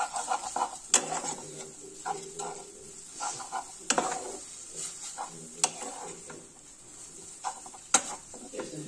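Wooden spatula stirring and tossing noodles with fried vegetables in a frying pan, scraping across the pan over a light sizzle. Four sharp knocks on the pan come about a second, four, five and a half and eight seconds in.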